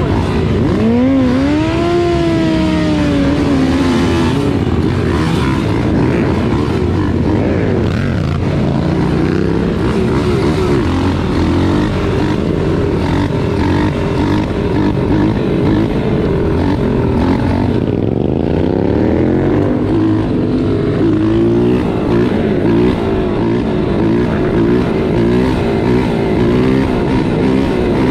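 Motorcycle engines of a group ride, the rider's own mini pit bike among them: several engine notes overlap, with revs rising about a second in and again about two-thirds of the way through.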